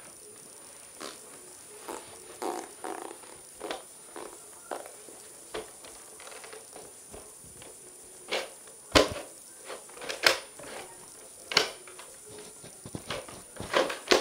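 Handling noise from a rucksack and plastic Nerf guns being picked up and put on: a string of irregular knocks, thuds and rustles. The sharpest knocks come about nine and ten seconds in.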